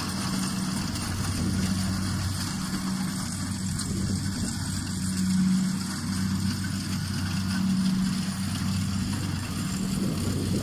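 Kubota DC-68G combine harvester's diesel engine running at a steady drone, swelling a little louder a couple of times.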